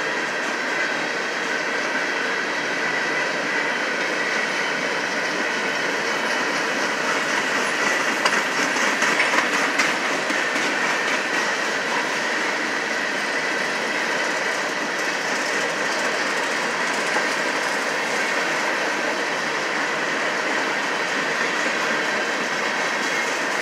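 Loaded covered hopper cars of a freight train rolling past steadily: continuous wheel-on-rail rumble with clickety-clack from the wheels over the rail joints and a steady high-pitched wheel squeal. The clatter grows a little louder about eight to ten seconds in.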